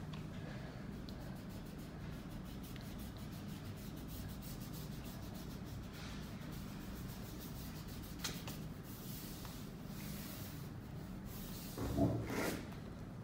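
A hand rubbing soft pastel into drawing paper to blend it, in faint repeated strokes over a steady low hum. About twelve seconds in, a louder bump and rustle as the camera is handled and moved.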